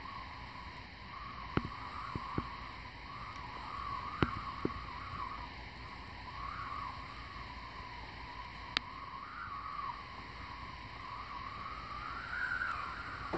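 Strong wind rushing, with a wavering whistle that rises and falls throughout, broken by a few sharp clicks.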